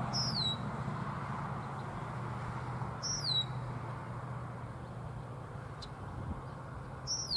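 A bird calls three times, each a short high whistle sliding downward, spaced about three to four seconds apart. Under it is the low rumble of a freight train slowly fading as it rolls away.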